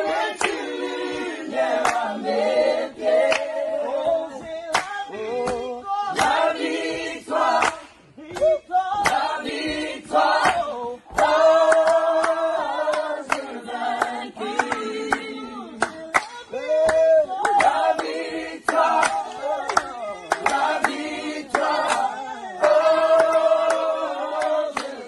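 Small mixed choir singing a gospel song a cappella in close harmony, with sharp hand claps through the singing and brief pauses between phrases.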